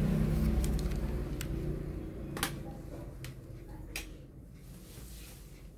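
Four sharp, isolated clicks, about a second apart, over a low rumble that slowly fades away.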